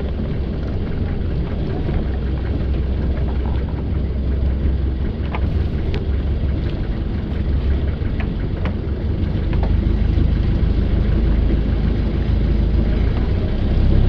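A steady low rumble at sea aboard an outrigger fishing boat: the boat's engine running, with wind buffeting the microphone and wash from the sea. A few faint knocks come through about halfway in.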